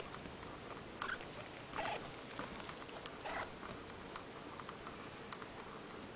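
Young kittens, one to three weeks old, giving short high squeaky mews, four in the first three and a half seconds, with faint light ticks in between.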